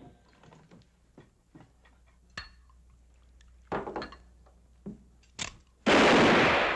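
Quiet sound from an old western film scene: scattered faint knocks and scuffs with a few louder short thuds. Near the end a loud burst of TV static hiss cuts in.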